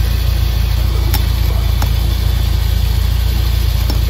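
UAZ Patriot SUV's engine idling steadily as a loud low hum, with a few light clicks over it.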